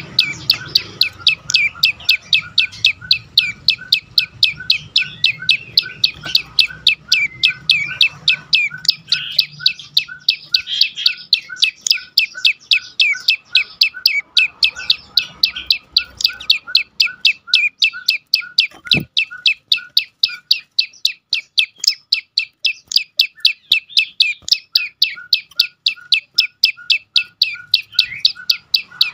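Prenjak lumut calling a fast, unbroken run of sharp chip notes, about three a second and evenly spaced. A single sharp click sounds about two-thirds of the way through.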